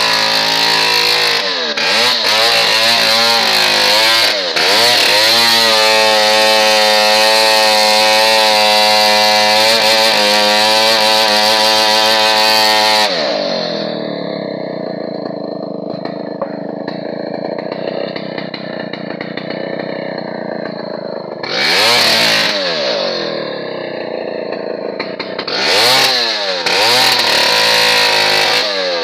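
Chainsaw engine revving a few times, then held at high speed for several seconds. About halfway through it drops back to a lower, quieter speed, and it is revved up twice more in the last third.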